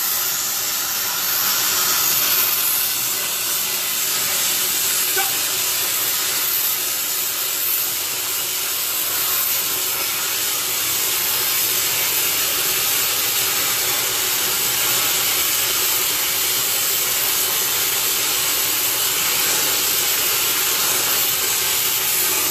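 A steady hiss, even and unbroken, strongest in the high pitches.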